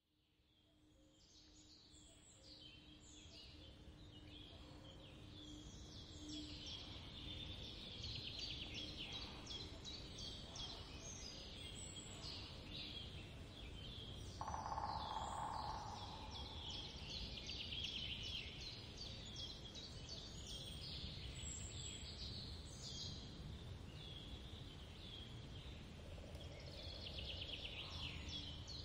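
Small birds chirping in many short, repeated calls, fading in at the start, over a low background rumble. A brief louder noise comes about halfway through.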